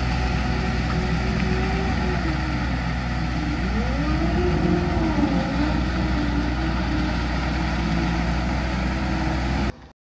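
Engine of a big-tyred amphibious off-road vehicle running steadily. Its pitch dips about three seconds in and rises again a second or so later as the throttle is eased and reapplied, and the sound cuts off abruptly just before the end.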